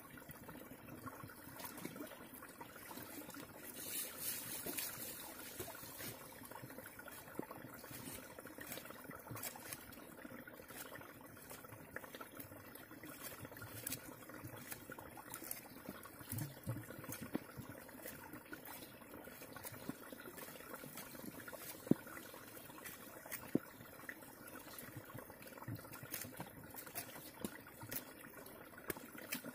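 Machete blade peeling and scraping a green fruit held in the hand: irregular small scrapes and clicks, over a faint steady background like trickling water.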